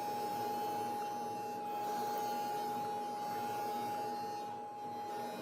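Electric drill motor running at a steady speed with a constant whine, drilling pilot holes through the jig into the door frame.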